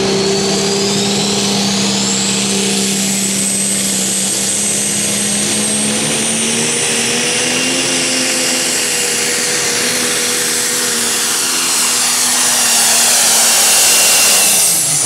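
John Deere Pro Stock pulling tractor's turbocharged diesel engine running flat out under load while pulling the sled. A high turbo whine climbs over the first few seconds and then holds. The sound grows loudest near the end, then begins to drop as the engine backs off.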